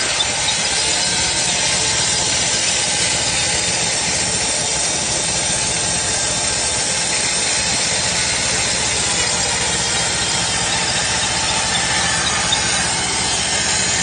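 Portable sawmill running and cutting through a log, a loud, steady sawing noise.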